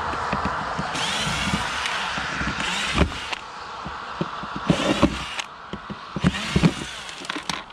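Tool work on a scrap dishwasher's metal parts: short bursts of scraping and rattling, broken by sharp clanks and knocks.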